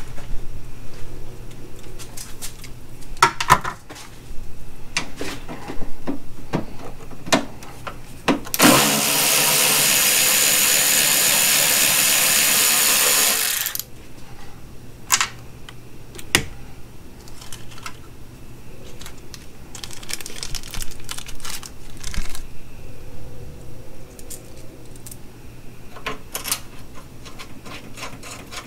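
Husky cordless electric ratchet running steadily for about five seconds, turning a fender bolt. Before and after it, scattered clicks and taps of hand tools and bolts.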